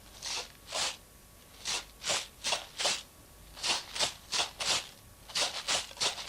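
Homemade shaker of split peas sealed between two pots, shaken in a chugging rhythm to imitate a steam train: the peas rattle in groups of about four strokes, starting slowly and picking up speed.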